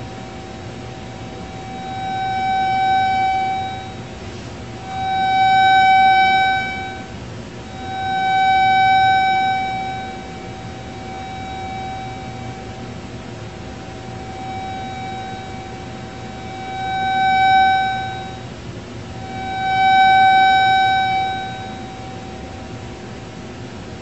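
Steady buzzy tone from a loudspeaker playing the signal of a microwave receiver, swelling loud and fading back five times, with two weaker swells in the middle. The rise and fall is the receiver passing through the maxima and minima of the interference pattern from a double-horn microwave emitter.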